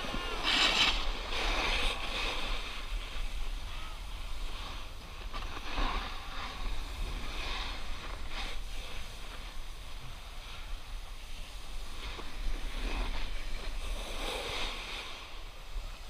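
Snowboard sliding over packed snow: a hissing scrape that swells and fades as the board turns, over a steady low wind rumble on the microphone.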